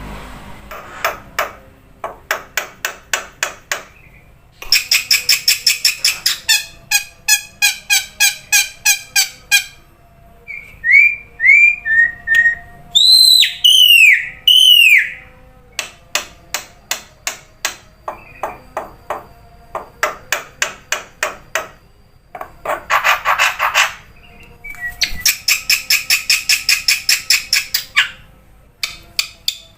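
Recorded songbird song of the kind used as masteran for black-winged mynas: long runs of sharp, rapidly repeated clicking chatter notes, with a burst of loud whistled notes that rise and fall about halfway through.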